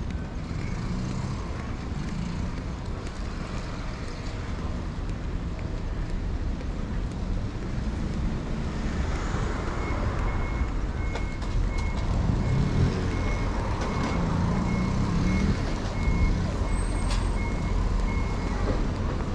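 Steady street rumble with a vehicle's reversing alarm: a regular run of short, high beeps starts about halfway through and stops near the end.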